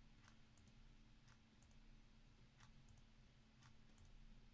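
Faint computer mouse clicks, a few a second, spaced unevenly: a button being clicked over and over to re-run a randomizer.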